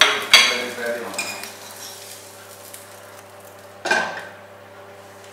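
Kitchen clatter of a metal utensil against a frying pan and dishes on a gas stove: a couple of sharp clinks at the start, a lighter one about a second in, and a louder knock about four seconds in, with faint frying sizzle between them.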